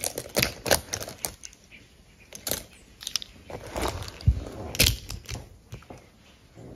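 A handful of makeup brushes clicking and rattling against each other as they are handled and laid out in a row, irregular light taps with two louder knocks a little past halfway.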